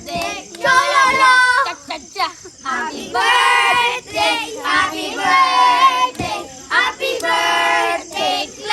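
A child singing in short phrases of held, wavering notes.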